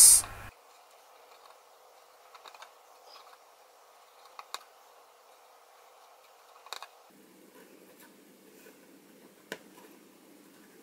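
Faint handling sounds of jute twine being worked into the end of a thin copper pipe: mostly quiet, with four soft clicks a couple of seconds apart.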